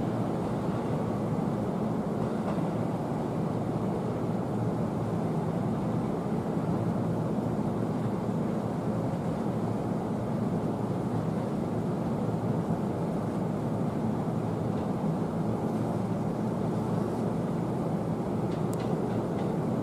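Steady low rumble of an E257 series trainset hauled by an EF81 electric locomotive, rolling slowly away over the station tracks.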